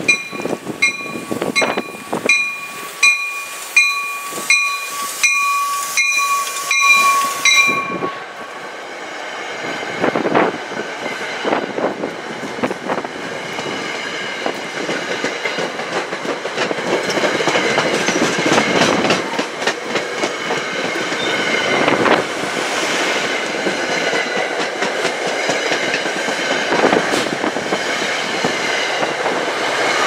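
NJ Transit push-pull passenger train running through the station. A bell rings about twice a second and stops about eight seconds in. Then the coaches rush past close by, their wheels clattering over the rail joints, louder toward the end as the locomotive at the rear passes.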